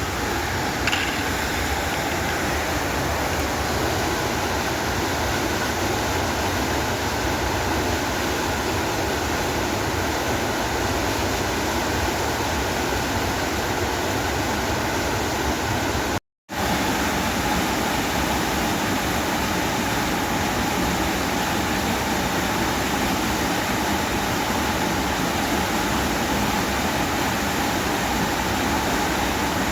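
Steady, loud rush of falling water from a waterfall, unchanging throughout, broken by a split-second silent gap about sixteen seconds in.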